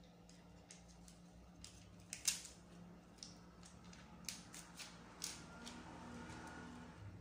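Small plastic packaging handled and picked at by fingers: a scatter of light clicks and crinkles, with one sharper click a little over two seconds in.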